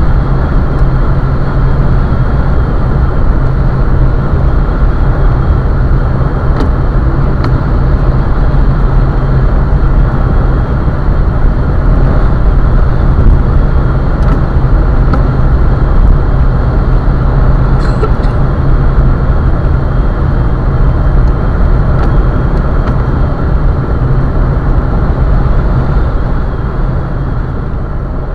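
Steady car cabin road noise at motorway speed on a wet road: tyre hiss over a low engine and drivetrain drone, heard through the dashcam's microphone. It fades a little near the end.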